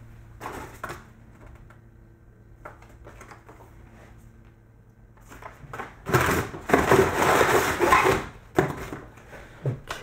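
Packaging being handled and crumpled: a few light knocks and rustles, then about six seconds in a loud stretch of crinkling and crushing that lasts a couple of seconds.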